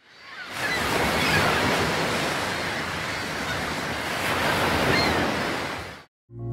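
Ocean surf, waves breaking and washing in a steady rush that fades in over the first half second, swells a little twice, and cuts off abruptly about six seconds in. Organ music starts just after the cut.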